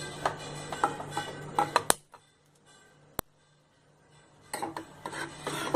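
Metal ladle clinking and scraping against a stainless steel saucepan as milk is stirred, with short metallic rings. The clinks come in two spells, with a near-silent pause of about two and a half seconds in between broken by a single click.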